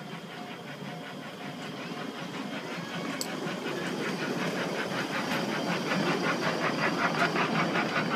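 Miniature park train styled as a steam locomotive running past on its narrow-gauge track: a steady hiss with rapid, even clicking that grows louder as it draws near.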